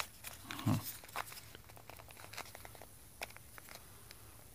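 Packaging being handled and worked open by hand: scattered light crinkles and clicks. A brief low voice sound comes about a second in.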